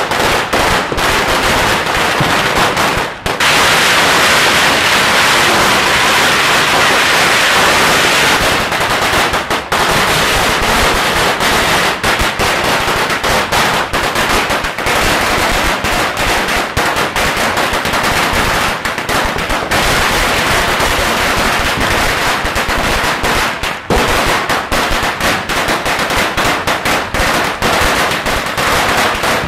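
Chinese firecracker strings going off in a continuous, rapid rattle of sharp bangs like machine-gun fire. The bangs come densest about four to eight seconds in, with only momentary lulls.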